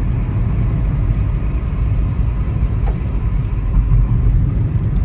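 Steady low rumble of engine and tyre noise inside the cabin of a moving car driving on a rain-wet road.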